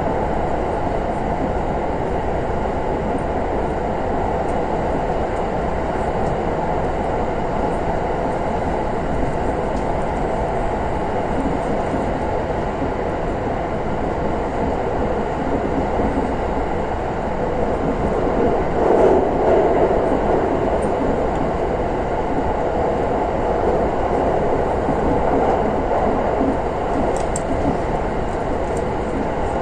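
Running noise of a 683 series limited express electric train heard from inside the passenger car: a steady rumble of wheels and motors on the track that swells briefly about two-thirds of the way through.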